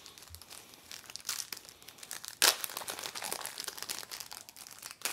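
Wrapper of a 1991 Impel DC Cosmic Cards trading-card pack crinkling and tearing as the pack is opened, in short irregular crackles, with a louder burst about two and a half seconds in.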